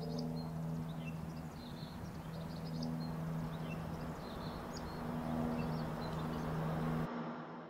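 Birds chirping over a steady low hum and rumble. The sound fades out near the end.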